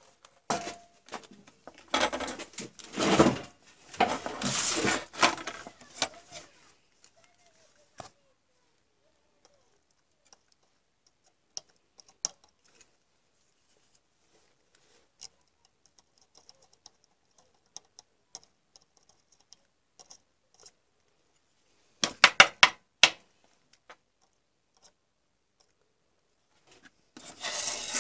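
Rubbing and scraping as a circuit board is handled on a wooden tabletop, in several bursts over the first seven seconds. Then mostly quiet with scattered small ticks, a quick run of clicks about two-thirds of the way in, and a clatter of small hard objects near the end.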